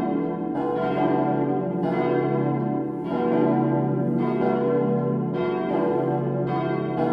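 Cast-steel church bells from 1922, tuned B, D, E and F-sharp, ringing together in a peal, with strikes overlapping about every half second over a continuous hum. The peal is poorly voiced: the low B stands out clearly, and the D bell's clapper strikes mostly on one side only.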